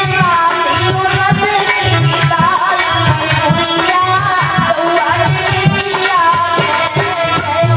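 A woman singing a Hindi devotional folk song (bhajan), accompanied by a harmonium's held notes and a hand drum keeping a steady beat.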